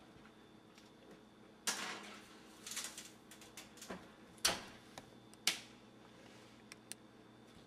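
A metal baking pan going onto a wall-oven rack and the oven door being shut: a series of light knocks and clicks, the sharpest two about four and a half and five and a half seconds in, then a couple of small ticks.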